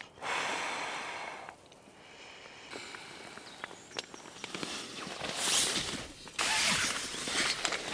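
Inflatable sleeping mat being blown up by mouth: long, breathy exhalations into its valve. Each lasts about a second, with the nylon mat crinkling and rustling in between.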